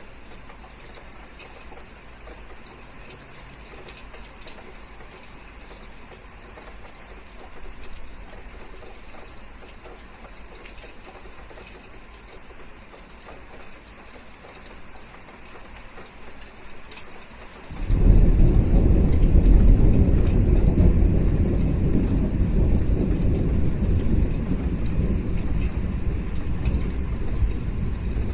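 Steady rain falling. About two-thirds of the way in, a loud deep rumble of thunder starts suddenly and rolls on, easing off slowly.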